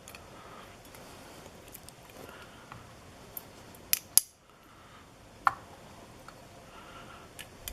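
Small metallic clicks of tweezers against lock pins and springs as a pin stack is pulled out of a challenge lock's chamber during gutting. A handful of sharp ticks, the loudest two close together about four seconds in.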